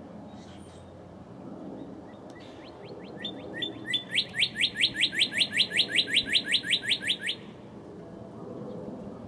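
Male northern cardinal singing. A few short whistled notes come first, then a fast, even run of about twenty quick sweeping whistles, some six a second, lasting about three seconds.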